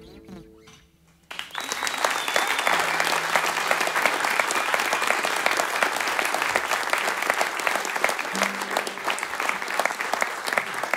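The last notes of an acoustic guitar song die away, then a little over a second in an audience starts applauding and keeps up steady clapping.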